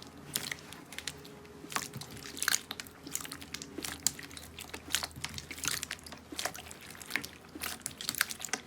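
Slime being pressed and squished by hand close to the microphone, with irregular sticky crackles, clicks and small pops.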